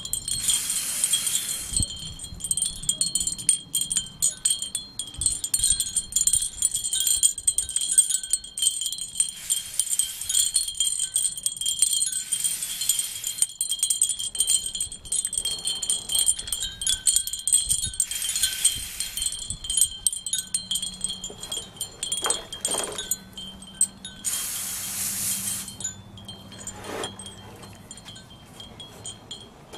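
Wind chimes ringing steadily with many light strikes, broken by several short bursts of hiss lasting a second or two.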